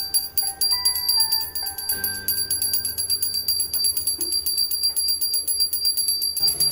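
Small brass pooja hand bell rung rapidly and without pause, the continuous ringing that goes with an aarti, over devotional music with a melody.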